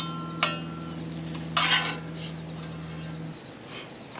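Metal spatula against a cast-iron skillet: a sharp clink about half a second in that rings briefly, then a short scrape a little past a second and a half in. A steady low hum runs underneath and cuts off about three seconds in.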